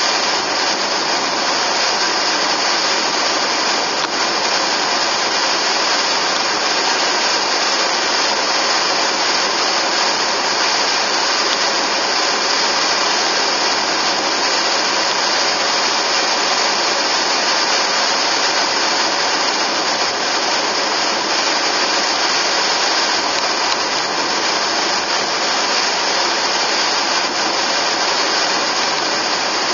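Steady driving noise of a car on the road, the engine and tyres running evenly, with a strong high hiss on top.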